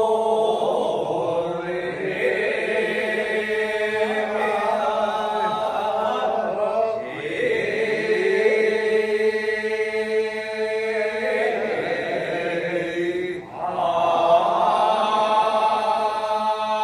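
A group of men singing an iwai kiyari, the celebratory Edo work chant, in long drawn-out, wavering notes. There is a brief pause about thirteen seconds in before the next phrase starts.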